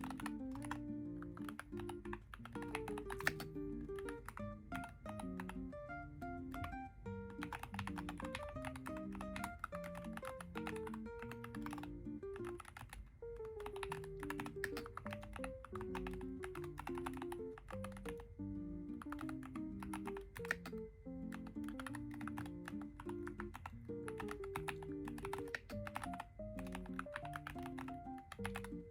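Typing on a Keychron HE magnetic-switch keyboard: a steady run of quick, uneven keystrokes. Background music with a plucked melody plays alongside.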